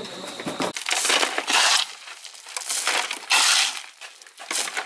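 Shovel strokes scraping and crunching through gritty wet concrete mix, about five strokes in a row.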